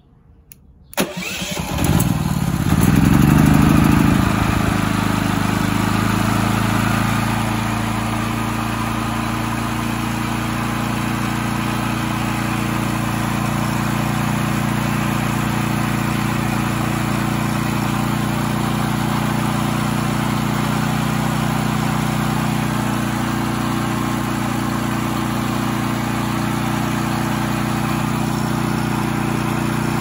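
Cummins Onan P4500i inverter generator's single-cylinder OHV engine starting about a second in, revving up briefly, then running steadily. It now fires and runs, the no-spark fault cured by the replacement indicator light part.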